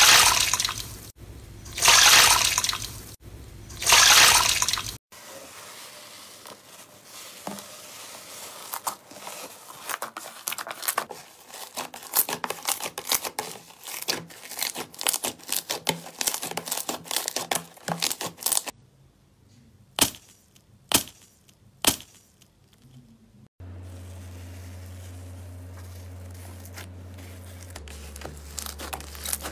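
Slime worked by hands: loud wet squelches as slime is squeezed in water in a metal bowl, then a long run of sharp clicks and pops as slime is pressed and pulled apart. Near the end, faint crackles over a steady low hum.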